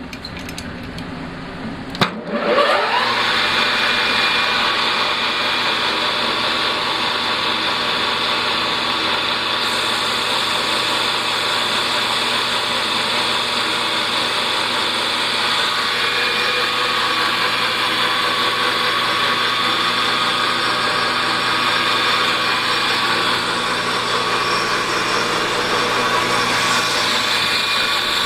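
Metal lathe clicking on and spinning up about two seconds in, then running steadily at speed with a whine of several steady tones while turning fountain pen barrels.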